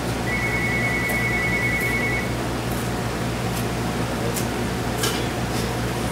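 A steady low machine hum runs throughout. A high, steady beep-like tone sounds for about two seconds near the start, and a few faint light clicks come later.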